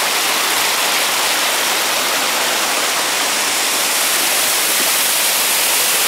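Steady rush of water from a rocky mountain stream and the waterfall that feeds it.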